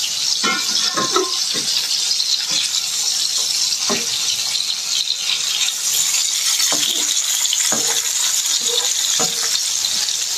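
Pieces of fermented fish shallow-frying in hot oil in a wok, with a steady sizzling hiss. A metal spatula knocks and scrapes against the wok now and then as the pieces are turned.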